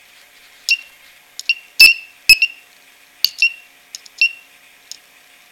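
A string of about a dozen sharp metallic clicks and clinks, each with a brief high ring, the two loudest close together about two seconds in: an alligator clip snapping and tapping against a battery terminal as it is connected to power up an inverter.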